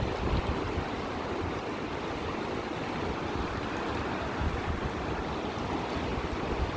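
Wind buffeting the microphone over the steady rush of river water.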